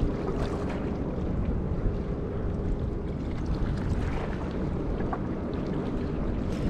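Steady wind buffeting the microphone, with small wind-driven waves lapping at the shore.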